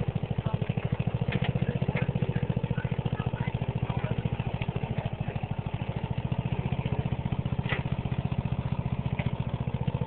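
Riding lawn mower engine running steadily with an even, rapid putter as the mower crawls along a gravel trail, with a few light clicks over it.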